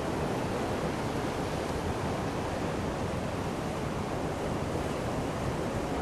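Loud, steady rush of Niagara Falls' water pouring over the falls and churning in the river below, an even noise with no breaks.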